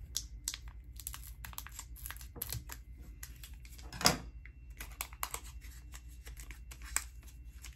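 Foil booster-pack wrapper being snipped open with scissors and handled, with the cards inside being worked out. It makes a string of small crackles and clicks, with one louder crackle about four seconds in.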